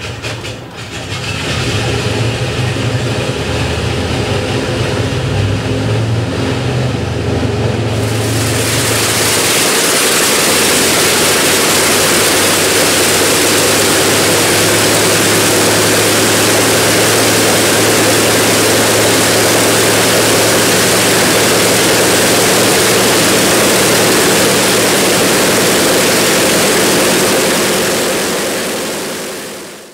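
Pratt & Whitney R-2800 eighteen-cylinder radial engine running on a test stand just after start-up, its propeller turning; a heavy low rumble, a little uneven at first. About eight seconds in it becomes a louder, steady rushing engine-and-propeller noise, which fades out near the end.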